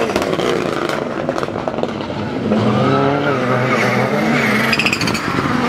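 Autocross race cars' engines revving hard as two cars come into a dirt corner, getting louder about halfway through, with the pitch rising and dropping as the drivers work the throttle through the slide.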